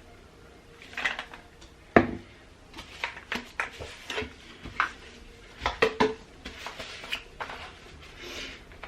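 Light clinks and knocks of a cup and small bottles being picked up and set down on a hard surface, with one sharp knock about two seconds in.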